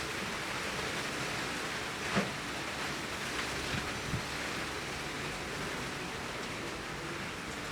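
Heavy rain pouring steadily in a garden, with a few louder individual drops or drips striking a surface about two and four seconds in.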